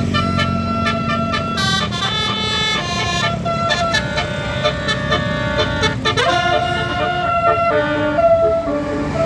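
Bus basuri (telolet) musical horn playing a tune of held notes that step from pitch to pitch, over the low running of the bus engine.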